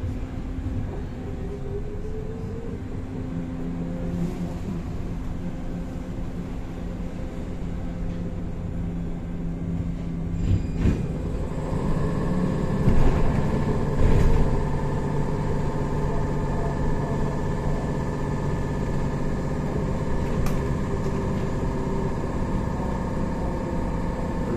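Inside a BKM 321 trolleybus on the move: a steady rumble of the running gear and road, with humming tones from the electric drive. A higher whine joins about halfway through. A few knocks sound about 11 and 13 to 14 seconds in.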